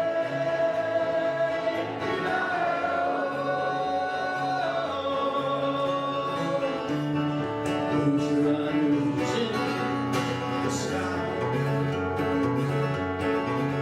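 Acoustic guitar and a singer performing a western song live. The voice holds long, wavering notes over a steady guitar accompaniment.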